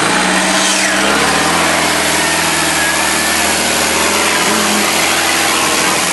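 Engine of a roll-caged Land Rover off-road competition vehicle running steadily, stuck in deep mud.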